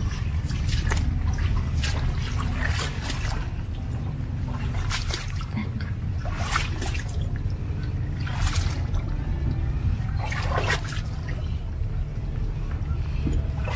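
Shallow floodwater trickling and splashing, with irregular splashes every second or two over a steady low rumble.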